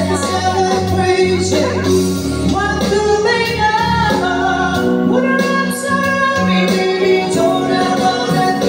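A woman singing into a handheld microphone over instrumental accompaniment, holding long notes.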